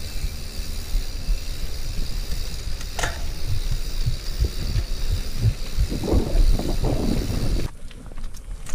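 Wind buffeting the microphone of a camera on a mountain bike riding a dirt road, over the rumble and hiss of the tyres on the dirt, with one sharp click about three seconds in. Near the end it drops suddenly to a quieter background with a few small clicks.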